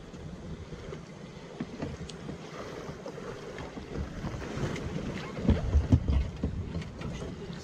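Wind buffeting the microphone over water lapping at the shore, with a cluster of low thumps and knocks about five and a half to six seconds in.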